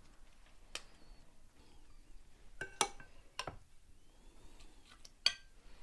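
Metal serving spoon and spatula clinking against glass baking dishes and ceramic plates while food is served out: about five separate clinks, two of them ringing briefly.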